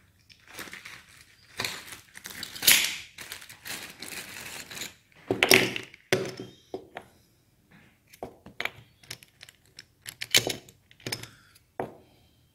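Chrome-plated shower door rollers with plastic wheels handled on a desk: irregular clicks, clinks and knocks as they are picked up and set down.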